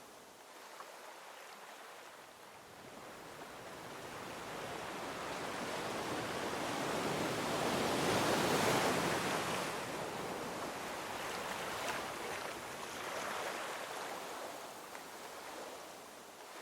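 Sea water rushing and washing, rising to its loudest about halfway through and then easing off.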